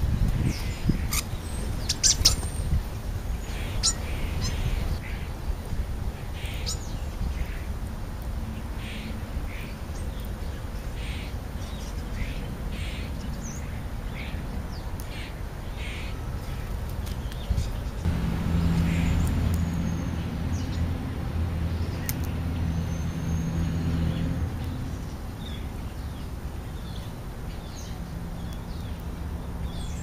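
European starlings giving short, scattered calls and clicks while feeding. A low steady hum comes in for several seconds past the middle.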